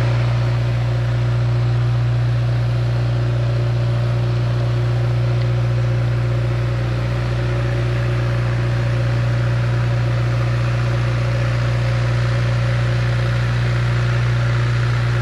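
A steady low mechanical drone, like a small motor running, holds unchanged throughout.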